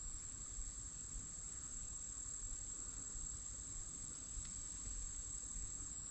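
Insects trilling in a steady, high-pitched chorus of two close tones, one of which drops out briefly near the end, over a faint low rumble.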